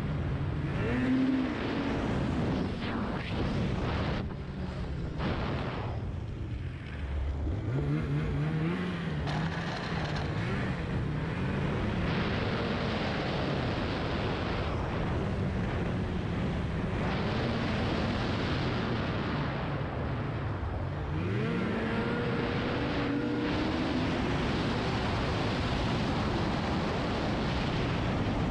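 Snowmobile engine running while riding along a trail, its pitch rising and falling as the throttle is worked, with sharp climbs about a quarter of the way in and again about three quarters through.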